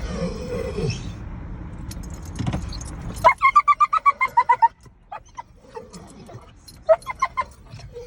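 Pit bull vocalising in a rhythmic, pulsing grumble that sounds like a tractor starter cranking: a quick run of pitched pulses, about seven a second, a few seconds in, with scattered shorter sounds around it. A car's engine hums underneath.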